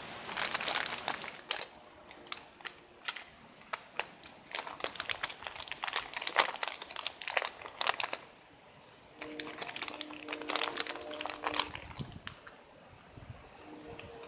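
Irregular crackling and crinkling clicks, some sharp and loud, of the kind a handheld camera or phone makes when it rubs against its microphone. The clicks thin out near the end. From about eight seconds in, a faint insect chirp pulses quickly in the background.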